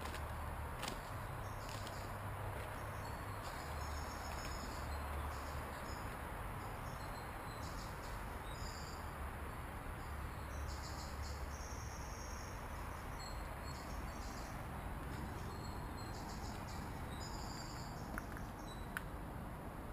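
Insects chirping in short high phrases that start and stop irregularly, over a steady background hiss.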